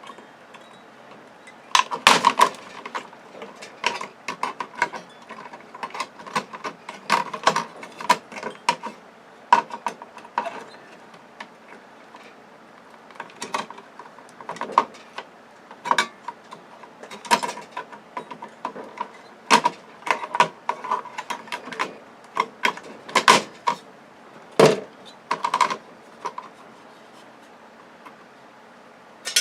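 Irregular metallic clicks and clanks of hand tools working on a TV circuit board, prying and unscrewing its metal shielding. The knocks come in uneven clusters, the loudest about two seconds in and again near the last quarter.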